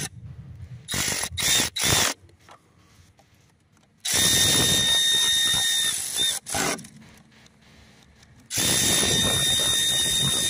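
Power driver spinning a socket on an extension to run bolts in. There are three short blips of the motor in the first two seconds, then two longer runs of about two and a half seconds each, with a steady whine over a rattle.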